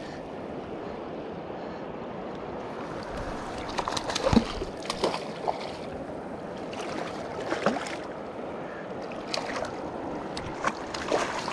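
Steady rush of a fast, high river, with scattered short splashes and knocks as a hooked trout thrashes at the surface near the bank.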